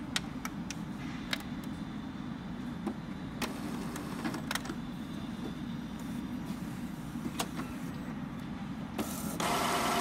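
Epson L385 inkjet printer switched on at its power button: scattered sharp clicks and ticks over a steady low hum, then a louder rushing burst in the last second.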